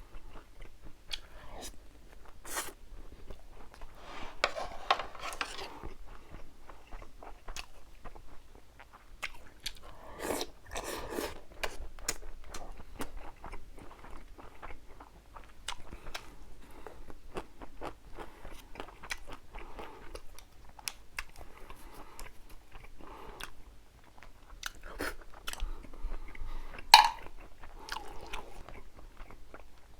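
Close-miked chewing and biting, wet mouth sounds with many small clicks and some crunching. There is one louder sharp click near the end.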